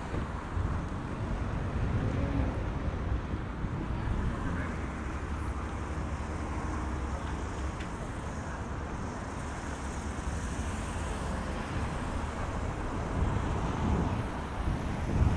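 Steady rumble of road traffic, with a car driving past more loudly in the last few seconds.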